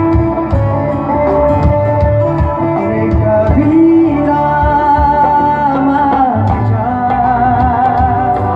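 Loud music: a song with a singer's wavering melody over a steady beat.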